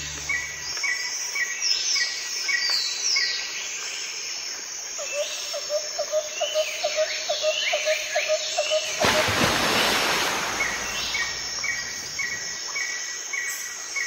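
Small birds chirping: a short note repeated about two and a half times a second, with high whistles sliding downward over it and a run of lower quick notes in the middle. A steady hiss comes in about nine seconds in.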